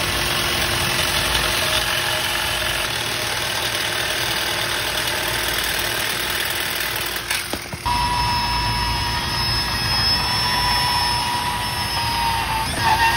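Milwaukee power saws cutting through a steel satellite-dish mast mount. A steady saw noise runs until a break about eight seconds in. Then the band saw runs with a steady high whine as its blade cuts the metal.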